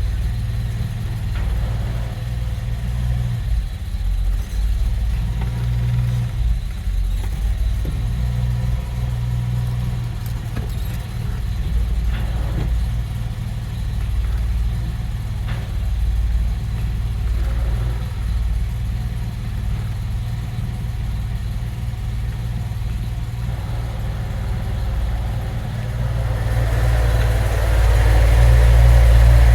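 Peugeot 504 coupé's carburetted V6 engine running with a steady low hum, getting louder near the end, while a strange noise from its four-speed gearbox is being recorded.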